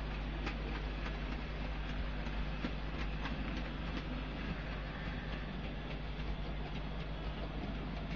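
OO gauge model train running on the track: a steady low hum from the locomotive's motor, with irregular light clicks as the wheels of the locomotive and its goods wagons roll over the rail joints.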